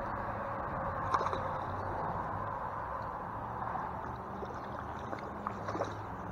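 Steady rush of flowing stream water, with a few faint clicks and splashes from a hooked trout thrashing at the surface.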